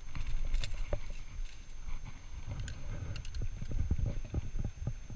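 Footsteps on rocky limestone ground, irregular knocks and scuffs, over low rumbling handling noise from a body-worn action camera.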